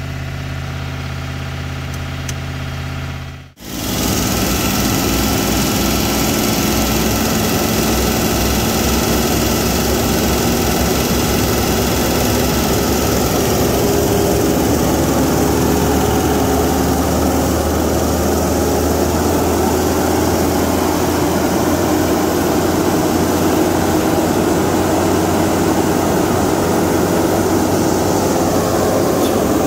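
Chevrolet L5P 6.6-litre Duramax V8 turbo-diesel running at raised idle during a forced DPF regeneration, a sound the owner calls brutal. It is heard muffled from inside the cab for the first few seconds, then louder with the hood open, with a whine that rises slowly over the second half.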